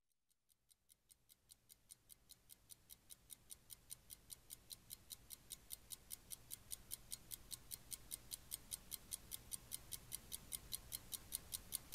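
Faint, even ticking like a clock, about four ticks a second, fading in from silence and slowly growing louder.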